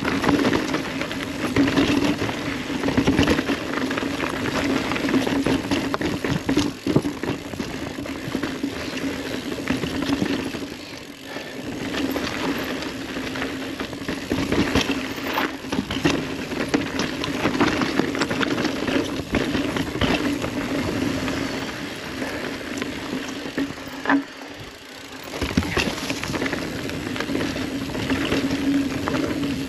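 Ibis Ripley full-suspension mountain bike riding down a rocky dirt singletrack: steady tyre and trail noise with frequent rattles and knocks from the bike over rocks, and a steady buzz that drops out briefly twice.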